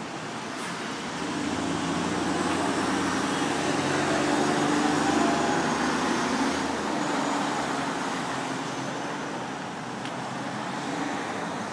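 Road traffic: a motor vehicle passes, its sound swelling for a few seconds and then slowly fading.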